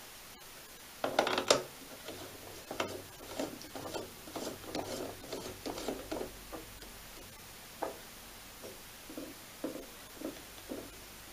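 Brass parts of an antique microscope being handled: two sharp knocks about a second in, then a run of light clicks and rubs as a piece is fitted into the top of the tube and the rack-and-pinion focus knob is turned.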